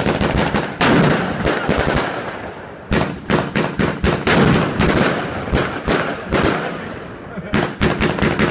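A Royal Fireworks 238-shot Mega Cakebox firing in rapid, uneven volleys of sharp launch thumps and bursting cracks. The shots let up briefly about two and a half seconds in and again about seven seconds in, then come thick and fast once more.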